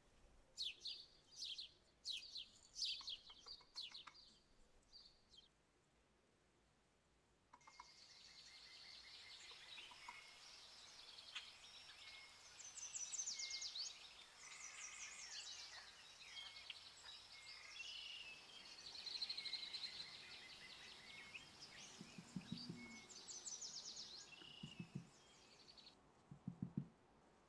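Quiet, quick strokes of a silicone whisk folding meringue into egg-yolk batter in a glass bowl. Then, from about seven seconds in, small birds chirp and twitter until just before the end, with a few soft dull knocks near the end.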